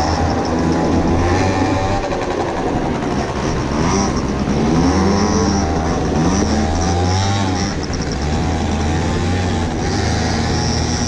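Small motorcycle engine heard from on board while riding, its revs rising and falling several times as it works along a muddy track, under steady wind noise.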